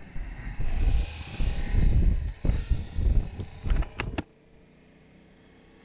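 Motorcycle riding noise from a Yamaha Tracer 700 GT under way: heavy wind buffeting on the microphone over the engine's rumble. A few sharp clicks come about four seconds in, and then the sound drops abruptly to a faint steady hum.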